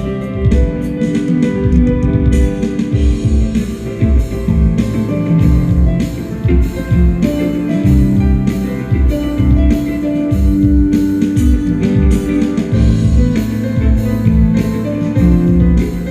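Band music with a steady drumbeat, guitar and held melody notes.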